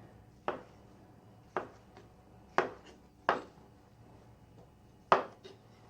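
Kitchen knife chopping ripe tomato on a cutting board: about six sharp, unevenly spaced knocks of the blade against the board.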